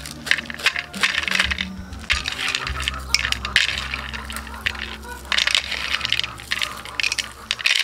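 Peanuts being rubbed between the palms over a ceramic plate to strip their red papery skins, the nuts clicking and rattling against each other and the plate in repeated bouts.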